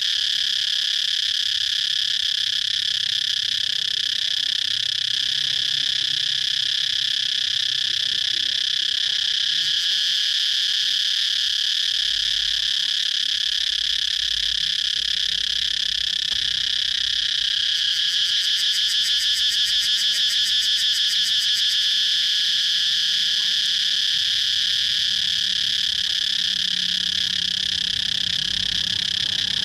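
Cicadas calling in a continuous high-pitched drone, with a faster pulsing call swelling in from about two-thirds of the way through for a few seconds.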